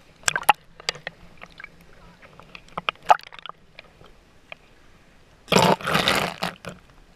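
Water lapping and dripping against an action camera's waterproof housing held at the surface, in scattered small splashes and clicks. About five and a half seconds in comes a loud, sloshing splash lasting about a second as the camera is swept through the water.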